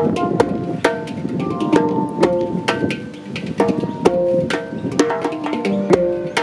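Djembe and handpan (hang drum) played together by hand: a busy run of slaps and tones on the djembe's skin mixed with ringing, pitched notes from the steel handpan.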